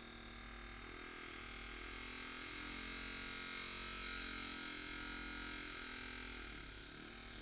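120° V graver cutting a curved groove into a metal plate: a faint hissing scrape that swells and fades over a few seconds, over a steady electrical hum.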